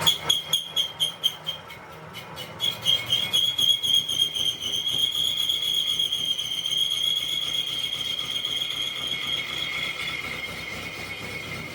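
Metalwork on a steel truck rim: a quick run of strikes for the first two seconds or so, then a high, steady metallic ringing whine with overtones that wavers slightly and slowly fades.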